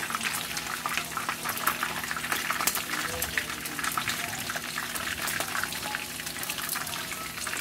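Chicken pieces frying in hot oil in a pan, sizzling with a steady dense crackle.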